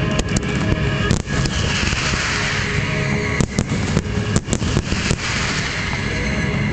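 Aerial fireworks display: about a dozen sharp bangs from bursting shells, with a crackling hiss about two seconds in, over music playing steadily underneath.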